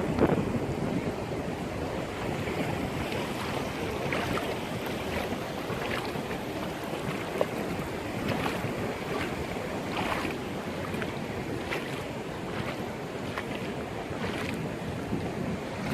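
Sea waves washing in: a steady rush of surf with frequent small splashes, the strongest surge right at the start.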